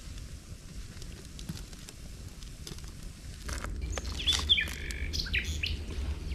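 Birds chirping: a few short calls about four to five seconds in. A low rumble comes up about halfway through, with scattered faint clicks.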